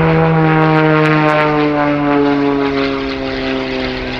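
Wolf Pitts Pro aerobatic biplane's piston engine and propeller flying past, its note falling steadily in pitch as it goes by.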